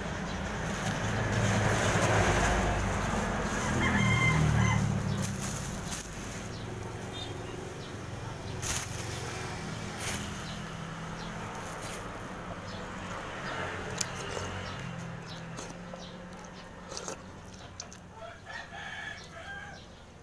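A rooster crowing, loudest about two to five seconds in.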